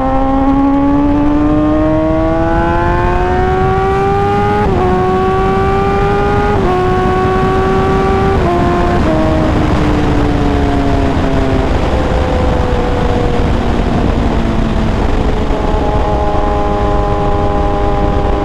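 Kawasaki ZX-10R sportbike's inline-four engine accelerating hard, its note climbing and dropping at quick upshifts about four and a half, six and a half and eight and a half seconds in. Then the revs fall away as the bike slows, and the note settles to a steady cruise near the end, all under heavy wind rush.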